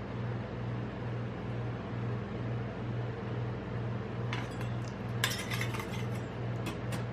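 Steel ice-cream spatulas scraping and clinking against the steel cold plate of a rolled-ice-cream machine as they are picked up, with one sharp clink about five seconds in. A steady low hum runs underneath.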